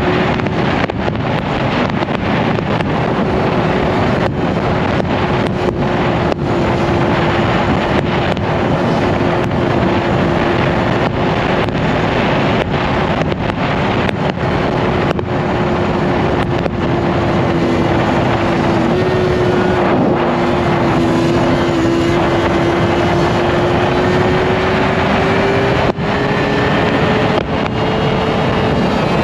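Yamaha R1's inline-four engine running at a steady cruise, under heavy wind rushing over the microphone. The engine note holds steady and rises a little near the end.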